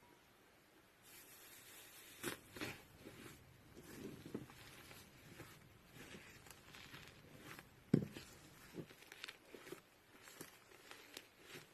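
Slime being squeezed and poked by hand, starting about a second in, with irregular sticky crackles and pops. The loudest pop comes about eight seconds in.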